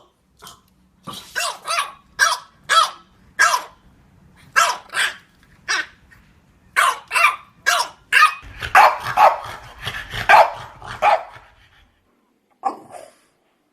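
French Bulldog barking in a rapid run of short, fairly high barks, more than a dozen. They crowd together into a denser, rougher flurry for a few seconds after the middle, then stop, with one last bark near the end.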